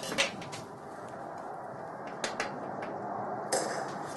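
Table utensils tapping and scraping against a glass tabletop and plates as bread rolls are cut and filled: a few sharp clicks in the first half-second, two more about two seconds in, and a short scraping rustle near the end, over steady room hiss.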